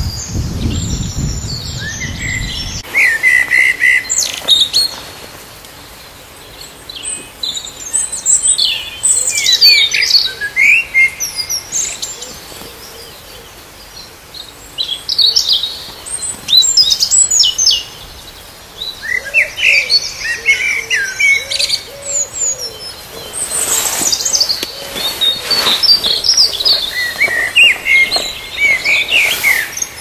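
Songbird singing loud, quick, varied phrases of a few seconds each, with short pauses between them. A low rumble sounds in the first few seconds.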